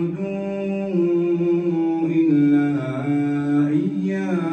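A man's solo voice reciting the Quran in a melodic chant, drawing out long held notes that step up and down in pitch about once a second.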